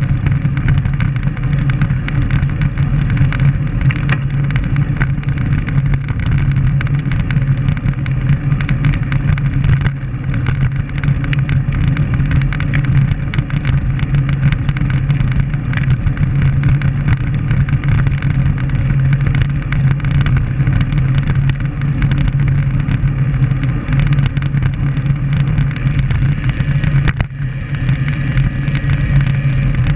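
Steady wind rushing over the microphone of a camera riding on a moving road bike.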